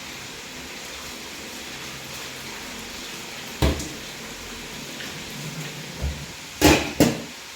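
Kitchen clatter at the stove: a sharp knock about three and a half seconds in, then three knocks close together near the end, over a steady faint hiss.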